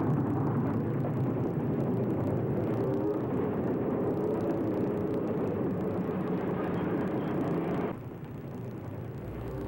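Mikado-type steam locomotive working with a passenger train: a steady running rumble that drops off sharply about eight seconds in.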